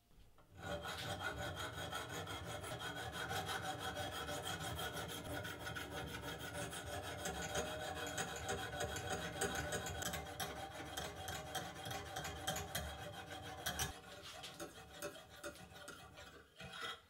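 Sharpening hone of a Lansky guided sharpening system stroked again and again across the edge of a small pocket-knife blade, a steady rasping of stone on steel as the bevel is ground. It grows quieter near the end.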